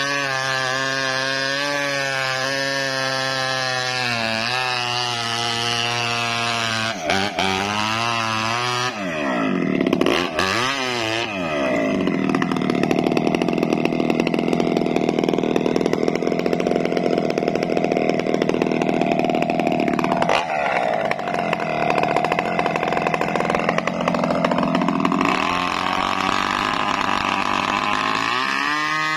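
Chainsaw running at low speed, revving up about ten seconds in, then running at full throttle under load as it cuts through coconut palm wood for about thirteen seconds, before dropping back to a low-speed run and revving again near the end.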